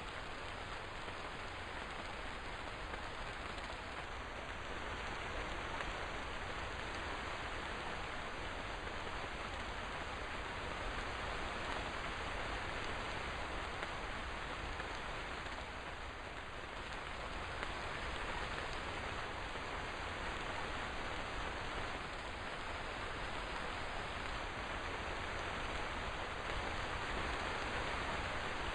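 Steady rain falling, an even hiss of many drops with no letup.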